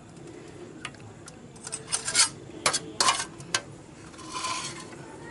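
Light clinks and taps on a stainless steel plate as food is handled, a cluster of sharp clicks between one and three and a half seconds in, then a brief scraping rustle near the end.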